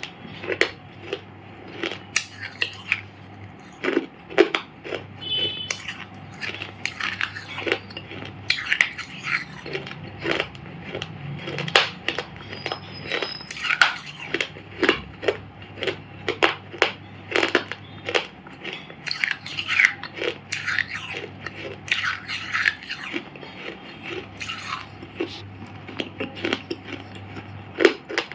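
Dry clay shapes being crushed and crumbled, giving irregular crunches and crackles one to three times a second over a faint low hum.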